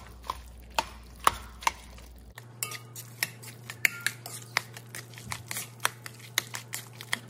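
Metal spoon clinking and scraping against an enameled cast-iron pot while stirring a thick mix of browned sausage and cream cheese. Sharp clinks come about twice a second at first, then quicken after about two seconds.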